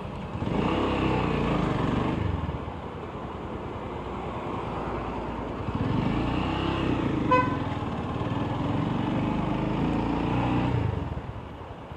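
Motorcycle engine picking up speed and easing off a few times while riding through slow traffic. A short horn beep about seven seconds in.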